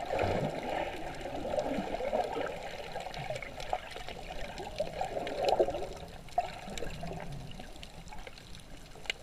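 Muffled, surging water noise picked up underwater by a camera in its housing, with scattered faint clicks, easing off after about six seconds.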